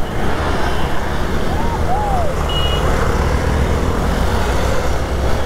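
Hero Xpulse 200 motorcycle engine running at riding speed, with steady road and wind noise. About a second and a half in come two short rising-and-falling whistle-like tones, then a brief high beep.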